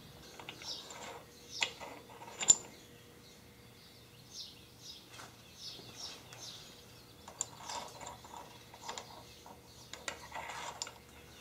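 Scattered light clicks and knocks of metal being handled on the mill's column, with one sharp click about two and a half seconds in and a busier cluster near the end as a hand works at the column.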